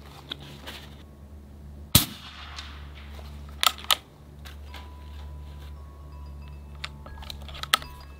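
Gauntlet 30 PCP air rifle firing a .30-calibre slug: one sharp shot about two seconds in. Smaller sharp clicks follow about a second and a half later and again near the end, over a steady low hum.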